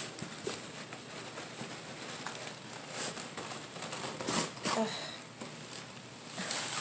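Paper wrapping and a cardboard shipping box rustling and crinkling as a wrapped plant is worked loose and pulled out, with scattered scrapes and crackles.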